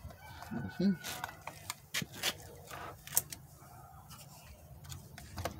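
Scattered clicks and light knocks from a Stihl MS 192T top-handle chainsaw being handled and its parts worked by hand, over a faint low hum.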